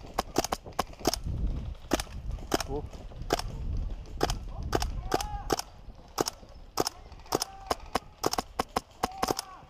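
Airsoft guns firing: sharp single cracks at irregular intervals, two or three a second, with a low rumble from about one second to five seconds in.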